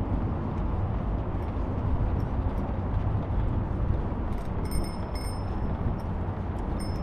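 Steady low rumbling noise, with a few faint high-pitched ringing tones about two-thirds of the way through.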